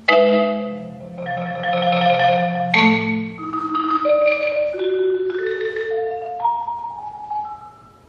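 Concert marimba played with mallets: a loud struck chord opens, followed by sustained, shimmering chords. A second accent comes about three seconds in. The lower notes then step upward while the sound thins out and dies away near the end.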